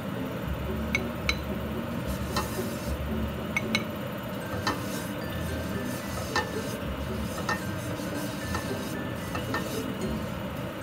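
Pancake batter being stirred by hand in a bowl, the utensil clicking lightly against the side about once a second, over a steady low hum.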